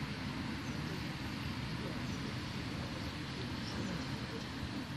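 Steady outdoor background noise: a low rumble of wind on the microphone with a faint hiss above it.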